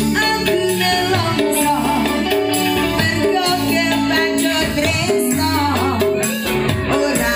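Live band music: a woman sings a bending, ornamented melody into a microphone over a keyboard-led band backing with a steady bass line and shaker-like percussion.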